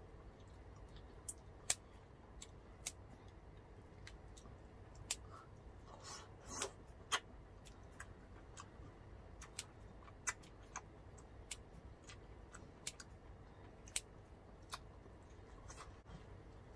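Scissors cutting grilled squid: a run of sharp, irregular snips and clicks, about one a second, with a denser crackly cluster around six to seven seconds in.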